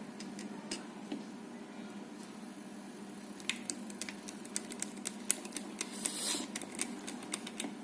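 Small sharp clicks and taps of a handheld radio's casing and parts being handled and fitted back together during reassembly, scattered at first and coming more often from about halfway through.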